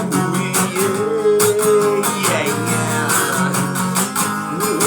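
Instrumental passage of a rock song: a guitar melody that slides up and down over chords and a steady drum beat.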